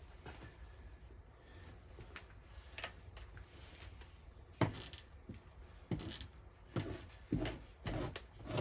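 Victorinox knife blade scraping fat and flesh off a beaver pelt: after a few quiet seconds, short scraping strokes start and come faster, about two a second near the end.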